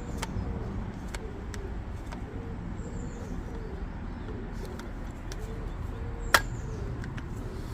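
Brake caliper piston tool being worked on a Volvo 240 rear caliper, pushing the piston back flush, with faint clicks and one sharp click about six seconds in, over a steady low rumble. Faint repeated cooing, like a pigeon, runs in the background.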